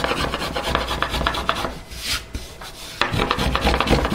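Quick back-and-forth cutting strokes of a small finger plane shaving the arched maple guitar top, easing off about two seconds in and then resuming more strongly.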